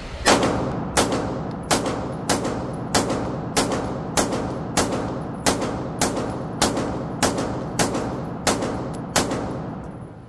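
A Live Free Armory Apollo 11 pistol fitted with a Wolf 9 lb recoil spring firing a full magazine, about fifteen steady shots a little over half a second apart, each echoing off the walls of the indoor range bay.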